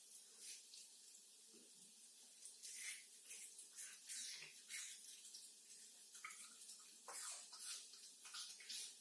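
A domestic cat chewing a juicy piece of watermelon: quiet, irregular wet chewing and chomping, in quick clusters of short smacks.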